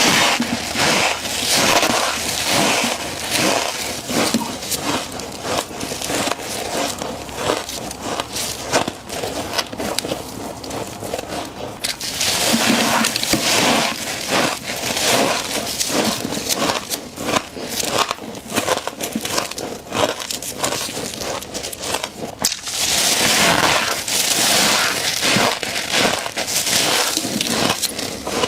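Frost being bitten and chewed close up: dense, crunchy crackling in bouts, easing off for a moment around ten seconds in and again around twenty-two seconds before picking up.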